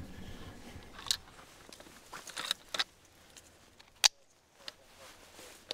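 Metallic clicks of a hunting rifle's action being worked by hand: a few light clicks, then one sharp click about four seconds in.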